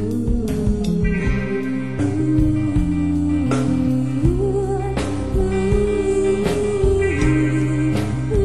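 Band music: sustained guitar notes over bass and drums with a steady beat.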